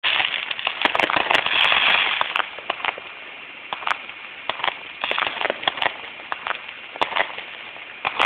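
Fireworks crackling and popping: a dense, loud run of sharp crackles for about the first two seconds, then scattered single pops.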